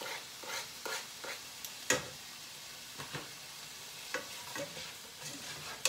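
Sliced beef and onion sizzling in a hot pan while shredded carrot is added and stirred in with tongs. The tongs click and tap against the pan and cutting board several times, sharpest about two seconds in.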